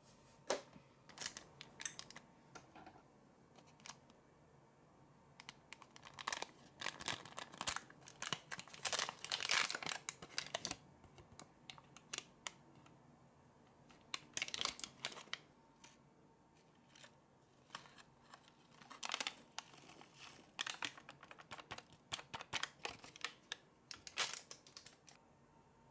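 Crinkling and crackling of a foil powder sachet being handled and opened, in several bursts, with small clicks of plastic toy pieces.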